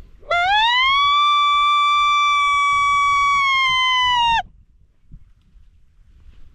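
Coyote howler call blown by mouth, giving one long female coyote interrogation howl: it rises at the start, holds steady for about four seconds, then drops slightly and cuts off.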